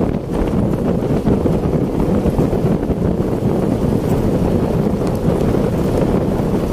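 Wind buffeting a microphone on a fast-moving bicycle: a loud, steady, low rumble with no breaks.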